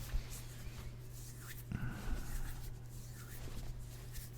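Soft, close-up rubbing and rustling of hands stroking, with a low steady hum underneath.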